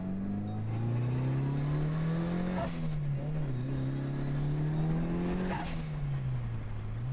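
Mitsubishi Lancer Evolution VIII's turbocharged four-cylinder engine accelerating hard through the gears: the pitch climbs, drops with a short rush of air at a shift about two and a half seconds in, climbs again and drops at a second shift near the end. The engine pulls cleanly, which the owner takes as a sign it is healthy.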